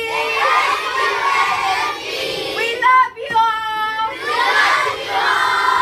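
A crowd of children shouting and cheering together, with a few high voices standing out above the crowd about three seconds in.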